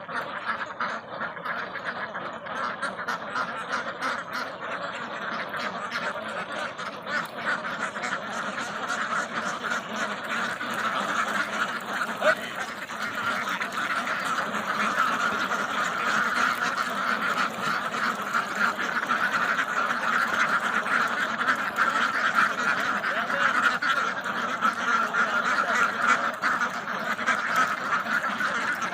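A flock of ducks quacking, with many calls overlapping in a continuous din that grows a little louder about halfway through.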